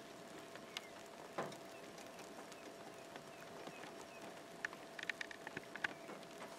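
Light rain falling, a faint steady hiss with scattered drops ticking close by, and a quick run of sharper drop ticks about five seconds in.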